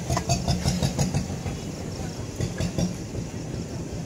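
Metal kebab skewers clinking at a grill: a quick run of sharp clinks in the first second or so and a few more a couple of seconds later, over a steady low rumble.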